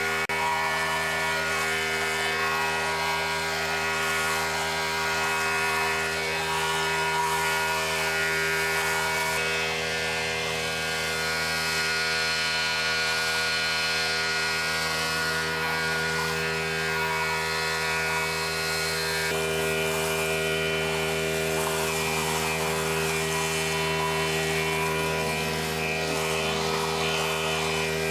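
Pressure washer engine running steadily under load while the surface cleaner sprays the concrete: an even, unbroken drone of several steady tones.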